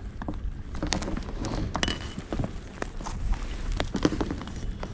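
Irregular small knocks and clinks, a few a second, of objects being handled and set down.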